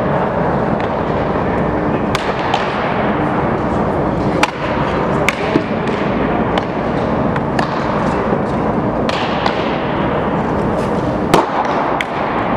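Sharp cracks and pops of baseballs striking bats and catcher's mitts in an indoor batting cage, spread irregularly over a steady background din. The loudest crack comes about eleven seconds in, as the batter swings.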